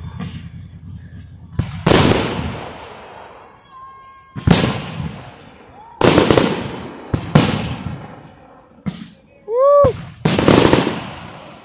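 Fireworks bursting in the sky: about half a dozen loud bangs one to two seconds apart, each trailing off in a crackling rumble.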